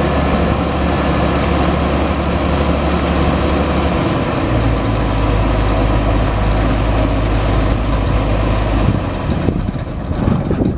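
Engine of a 1981 Massey Ferguson 850 combine running steadily as the combine moves slowly. Its low engine note changes about four seconds in, and the sound gets a little quieter near the end.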